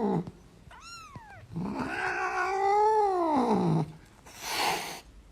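Domestic cat yowling: first a short call, then a long drawn-out one that rises and falls in pitch. It ends with a brief hiss.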